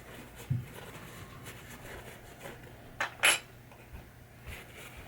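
Small metal parts of a pinball drop target assembly being handled on a workbench. There is a dull knock about half a second in, then two sharp metallic clinks close together about three seconds in.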